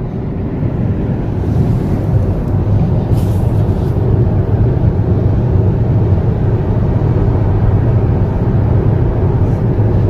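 Road noise of a moving car heard from inside the cabin: a steady low rumble of tyres and engine at cruising speed.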